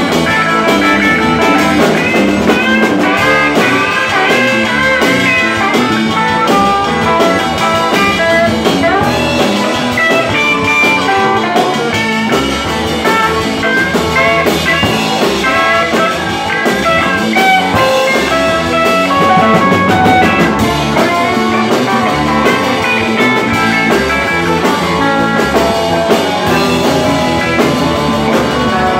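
Live rock and roll band playing an instrumental break: electric guitar lead lines over bass and drum kit, at a steady driving tempo.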